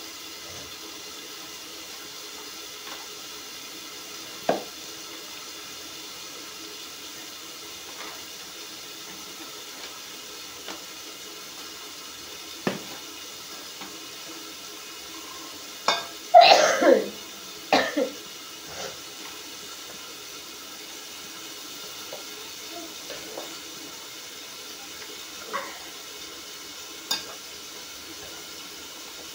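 Hands kneading roti dough in a steel bowl: quiet, with a few light knocks, over a steady hiss. A cough a little past halfway is the loudest sound.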